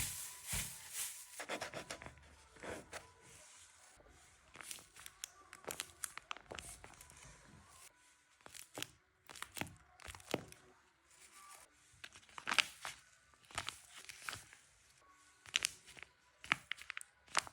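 Paper being handled: tearing and crinkling in short, irregular rustles and snaps, with the loudest ones in the second half.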